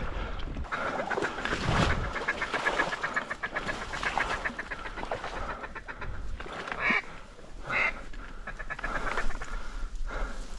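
Waterfowl calls: a fast run of short clucking notes, then two louder honking calls about two-thirds of the way through.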